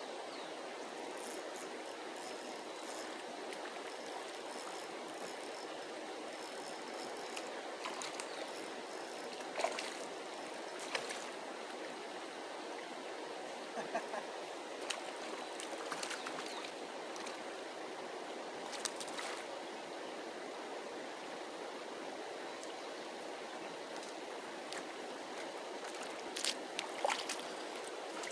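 Steady rush of a flowing river, with a few short, sharp clicks and splashes scattered through it, the loudest cluster near the end.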